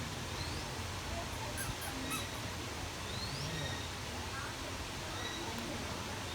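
Faint bird calls: a few short rising whistles and some brief chirps over steady outdoor background noise.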